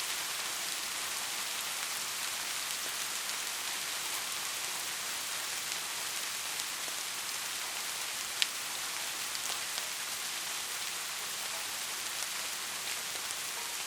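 Steady rain falling, an even hiss, with a single sharp drop-like tick a little over halfway through.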